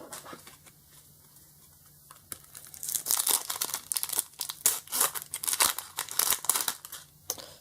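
Foil wrapper of a Pokémon card booster pack being torn open and crinkled by hand, a quick run of sharp crackles and rips starting about two seconds in and stopping shortly before the end.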